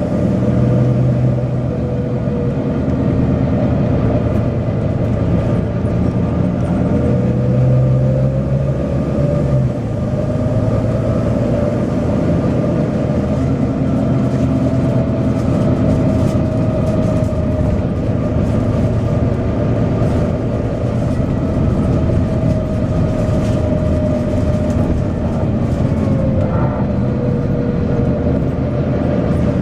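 Volvo B9TL double-decker bus's six-cylinder diesel engine running steadily under way, with a whine that slowly rises and falls as the bus changes speed.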